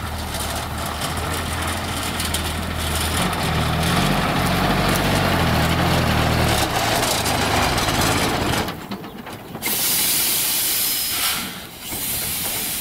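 Engine of a ZIL truck laden with firewood, running and rising in pitch as it pulls through tall grass. About nine seconds in the engine sound drops away and a loud hiss follows, about a second and a half long, then a shorter one.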